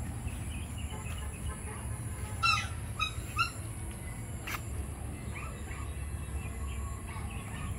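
Birds calling outdoors: three short, loud calls about half a second apart near the middle, over faint scattered chirps and a steady low rumble, with one sharp click a little later.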